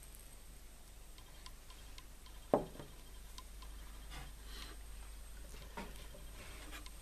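Glass conical flask set down on a wooden tabletop, one solid knock about two and a half seconds in, with a few faint light clicks and ticks around it.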